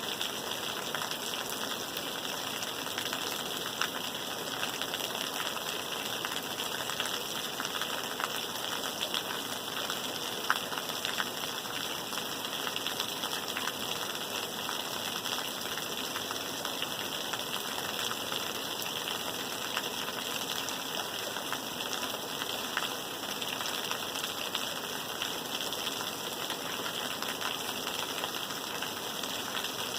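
Steady rain falling: a continuous hiss with the ticks of individual drops scattered through it.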